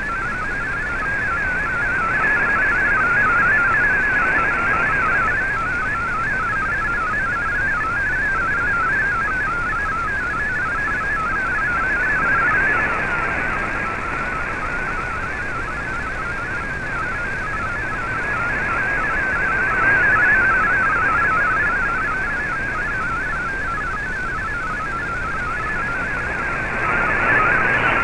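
MFSK32 digital text signal from a shortwave broadcast, heard through a shortwave receiver: a fast, unbroken warble of tones hopping in pitch within a narrow band. Shortwave static under it swells and eases every few seconds.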